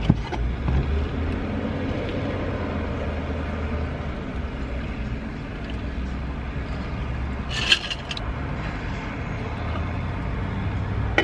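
Steady low rumble of vehicle sound, heard from inside a car. About eight seconds in comes one short, sharp slurp, a sip through the straw of a large insulated tumbler.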